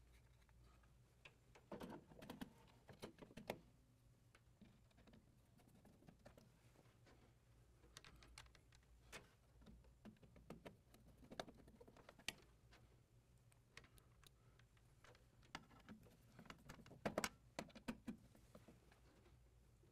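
Mostly quiet, with faint scattered clicks and taps of a Phillips screwdriver and a card reader being handled in an ATM's metal chassis during installation; louder clusters of clicks come about two to four seconds in and again around seventeen seconds.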